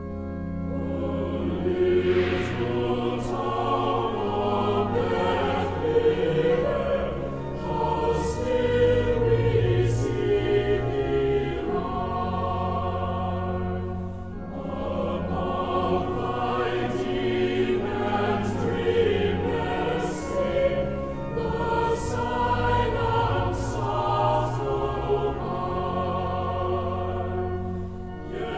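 Choral music: a choir singing in long, held phrases over sustained low accompaniment, with a short break between phrases about halfway through.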